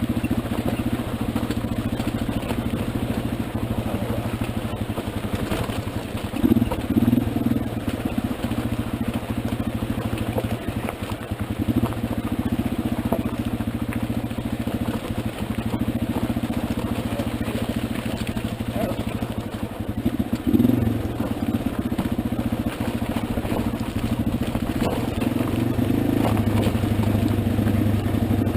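225 cc trail motorcycle engine running at low, steady revs on a rocky downhill descent, with two brief louder swells: one about six to seven seconds in and another about twenty-one seconds in.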